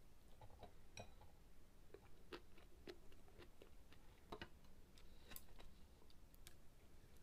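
Faint, irregular clicks and taps of chopsticks against the pan and bowls, with soft chewing in between.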